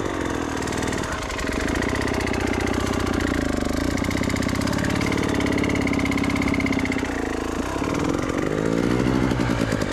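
Enduro dirt bike engine running under load, its pitch rising and falling as the throttle is worked.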